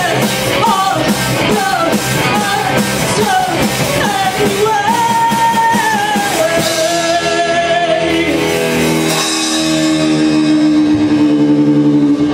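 Live rock band with drums, electric guitars and a singer playing out the end of a song: the singer holds a long note over the drums, then from about three-quarters of the way in the band rings out on one sustained final chord.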